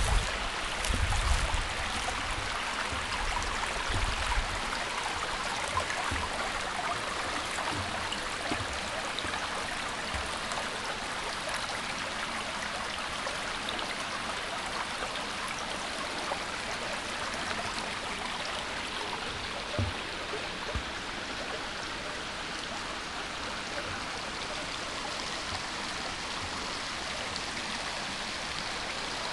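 Mountain stream flowing under a footbridge: a steady rushing babble of water, with a few low thumps in the first few seconds.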